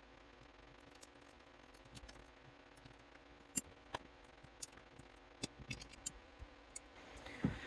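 Scattered small metallic clicks and taps, about eight in all from a few seconds in, as the parts of a Walsall Ace lever safe lock are taken apart by hand, over faint room tone.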